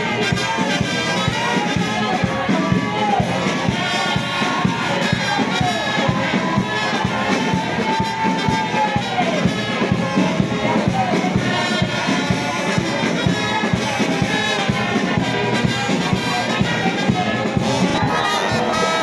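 Marching brass band with sousaphones and drums playing a processional tune, over a crowd.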